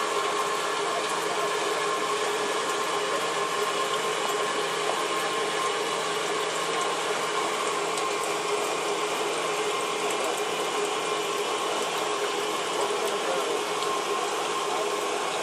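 A boat's engine running steadily while under way: a constant mechanical drone with a few held whining tones on top.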